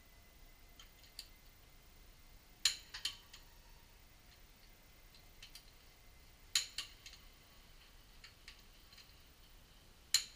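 Click-type torque wrench set to 150 N·m breaking over on the wheel bolts: three sharp double clicks about four seconds apart, each one a bolt reaching its set torque.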